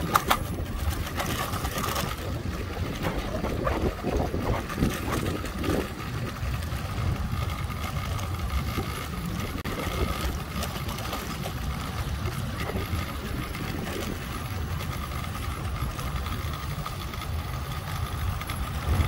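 Florida East Coast Railway rail train, flatcars of rail with a yellow rail-handling power car, passing with its engine running steadily under a low rumble, and a faint steady high whine over it.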